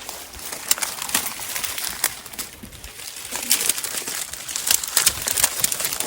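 Rustling and crackling of dry leaves and twigs as someone pushes through undergrowth, with many sharp snaps and crackles throughout.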